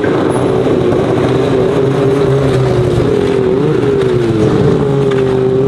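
Polaris 850 two-stroke snowmobile engine, fitted with an aftermarket GGB exhaust, running steadily just after starting, with a brief rise and fall in pitch about four seconds in.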